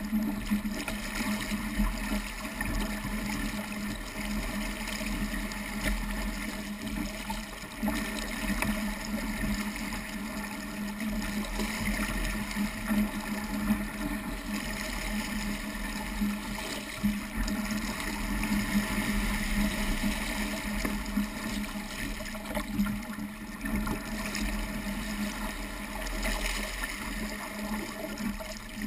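Water rushing and splashing along the hull of a small Sabot sailing dinghy driving through choppy waves, a steady uneven wash with wind rumbling on the microphone.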